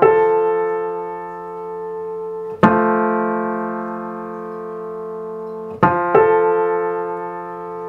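Piano intervals struck and left to ring so their beat rates can be compared: the F3–A3 major third and the F3–A4 tenth, with the third tuned to beat slightly slower than the tenth. Fresh strikes come about two and a half seconds in and again about six seconds in, where two notes sound a moment apart.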